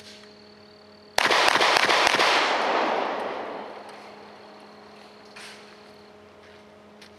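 Glock 17 9mm pistol fired in a rapid string of shots starting about a second in, lasting about a second and a half, with the echo dying away over the next two seconds.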